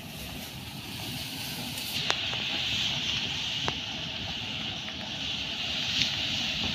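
Tall grass rustling as people push through it on foot: a steady rustling hiss that starts about two seconds in, with a few sharp snaps of stalks.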